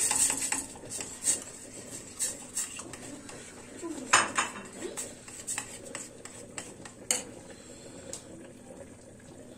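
Metal spoon clinking and scraping against a small stainless steel pot while stirring tomato sauce. The taps come irregularly, the loudest a little past four seconds in, and thin out toward the end.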